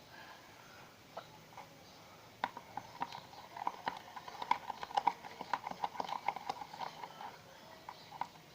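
Homemade glue-and-detergent slime being worked, giving a rapid, irregular run of sticky clicks and pops that starts about two and a half seconds in.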